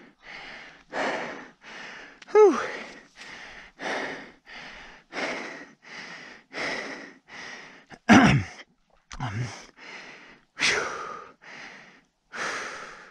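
A person panting hard, out of breath after exertion, with quick breaths in and out about twice a second. A voiced 'whew' comes about two seconds in, and a louder, deeper exhale comes about eight seconds in.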